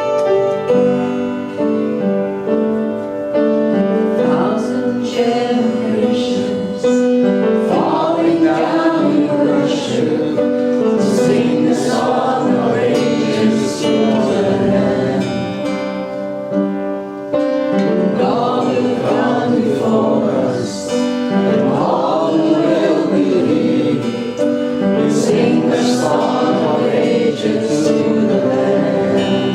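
Church worship music: a group of voices singing a slow worship song together over sustained keyboard chords, with occasional light cymbal swells.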